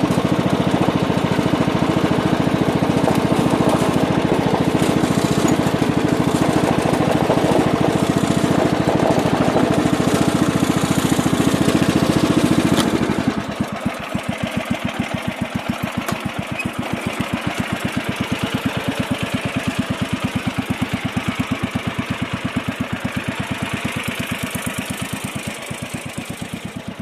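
MTD riding lawn tractor engine running at high throttle, then throttled down about halfway through to a lower, even idle with its separate firing beats audible.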